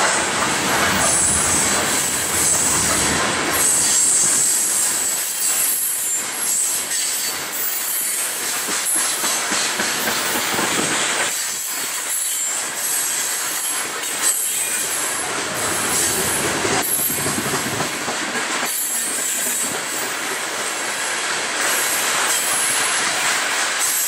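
Loaded coal train's open-top coal cars rolling past at speed, a continuous rumble and clatter of steel wheels on rail with a steady high-pitched squeal from the wheels.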